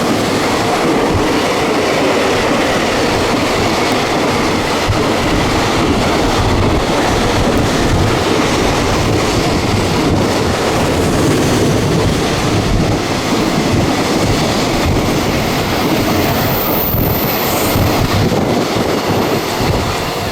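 A train passing through the station at speed without stopping: a loud, steady rush of wheels and cars with rail clatter.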